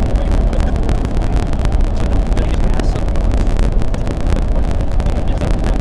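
Loud, steady rush of road and wind noise from a vehicle driving along a highway, with wind buffeting the microphone in quick gusts.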